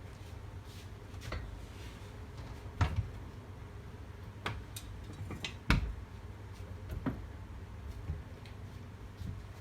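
Scattered sharp metallic clicks and knocks of tools and parts being handled while a cylinder mower's cutting reel is taken apart. About seven strikes in all, the two loudest about three and six seconds in, over a steady low hum.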